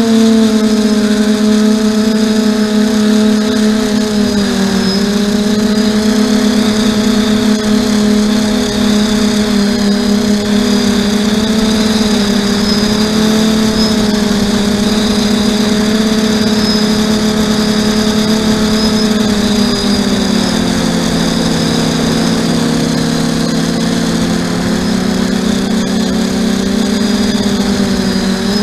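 Quadcopter's electric motors and propellers buzzing steadily in flight, heard from the onboard camera, the pitch drifting slightly with throttle and dropping lower for the last third.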